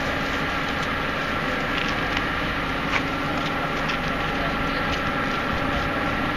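Steady railway-platform noise: the even hum of a standing electric train, with a few light clicks.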